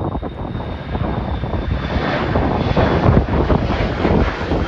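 Jet airliner engines, a loud rushing noise that builds over the first two seconds and then holds.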